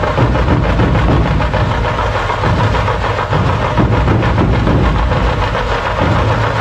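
A troupe of large dhol drums played together with sticks, loud and continuous, with dense strokes running into a deep rumble.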